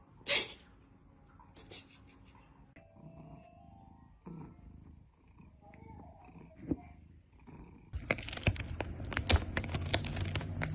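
A cat sneezing once, sharply, just after the start. About eight seconds in comes a louder stretch of close cat purring with rapid pulses.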